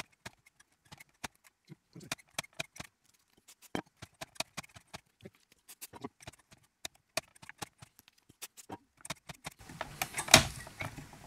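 Irregular small clicks and taps of tools and parts being handled on a tube radio chassis during contact cleaning, with a short rush of noise and a few louder knocks near the end.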